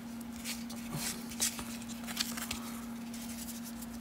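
Baseball cards being handled and slid one behind another: a series of light, short cardstock rustles and flicks. A steady low hum runs underneath.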